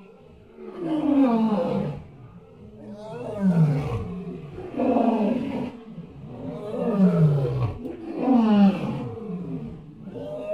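Lion roaring: a series of about five loud roars, each falling in pitch over about a second, a couple of seconds apart.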